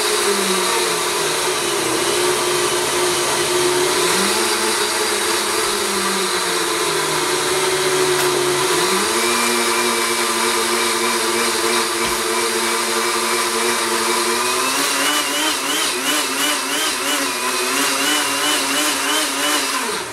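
K-Tec Champ HP countertop blender running at full power, blending a thick green smoothie of avocado, cucumber, greens, fruit, yogurt and water in an Alterna aftermarket jar. The motor pitch shifts several times early on, runs steadier from about nine seconds in, wavers from about fifteen seconds, and stops abruptly at the very end as the blend cycle finishes.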